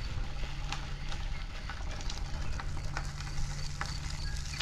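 A steady low motor hum starts just after the beginning, over constant crackling, rumbling outdoor noise.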